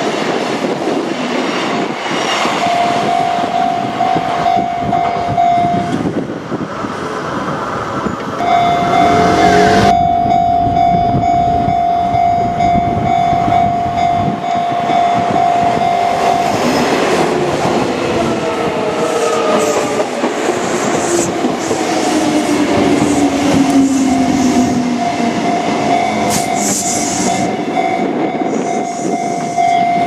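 Kintetsu electric trains passing over a level crossing, with steady wheel rumble and clatter while the crossing warning bell rings in stretches. Midway, a train's motor whine falls steadily in pitch as it slows.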